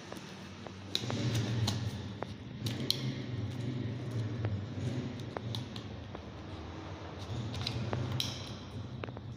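Handbag being rummaged through: sharp clicks and clinks of its metal clasp and hardware, with a paper leaflet rustling, over a steady low hum.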